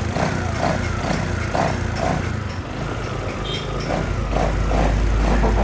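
Suzuki Address scooter's small engine running at a steady idle just after starting.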